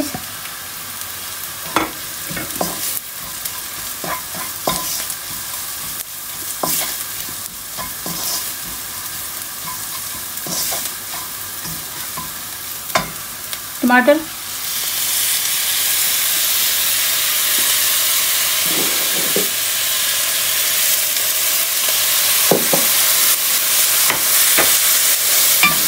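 Onions and spices frying in oil in a wok, a wooden spatula stirring with scattered clicks and scrapes against the pan. About halfway through, chopped tomatoes go into the hot oil and the sizzle turns much louder and steadier.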